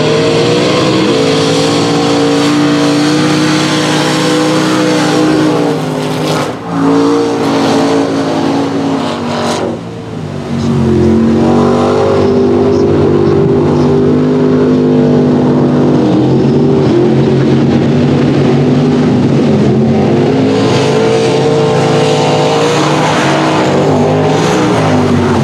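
Mud-racing pickup trucks' engines running hard at full throttle, a loud sustained high-revving note. The pitch and level dip briefly about six and ten seconds in before climbing again.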